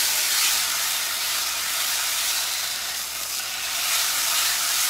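Gochujang-marinated steak sizzling as it sears in a hot skillet: a steady frying hiss that eases slightly about three seconds in.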